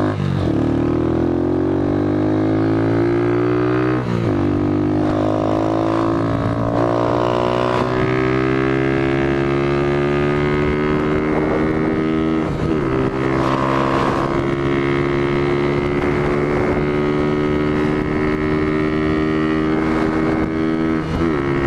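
Honda CG Titan 150's single-cylinder four-stroke engine accelerating at full throttle through the gears. Its pitch climbs steadily after each upshift, with shifts about four seconds in, around twelve and a half seconds in, and near the end. The last gear pulls longer and slower as the bike nears top speed.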